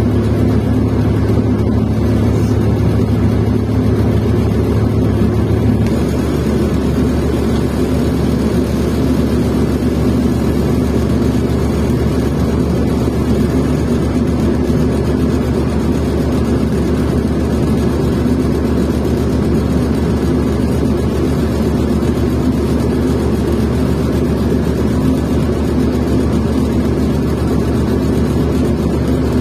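Cummins Westport ISL-G natural-gas inline-six engine of a New Flyer XN40 city bus running steadily, a continuous drone whose note drops slightly about six seconds in.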